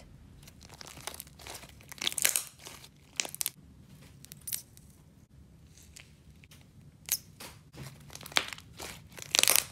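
Thick sleigh slime with jelly cube sponges mixed through it, stretched, folded and squished by hand, giving irregular sticky crackles and small pops. The crackles are louder about two seconds in and cluster near the end.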